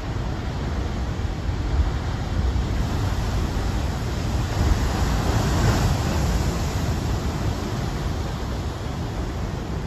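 Heavy storm surf breaking against rock ledges: a continuous rushing noise of breaking waves, heavy in the lows. It swells about halfway through as a large wave bursts into spray.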